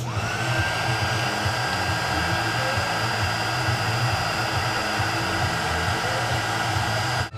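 Small handheld heat gun switched on: its fan spins up with a brief rising whine, then blows steadily with a high whine for about seven seconds before cutting off suddenly.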